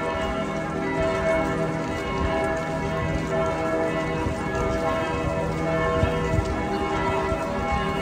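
Church bells pealing continuously, several bell tones ringing together and overlapping, over a steady low background rumble.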